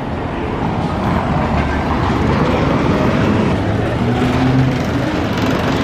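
Busy city street traffic noise: a steady rush of passing and idling vehicles, with a low engine hum rising about four seconds in.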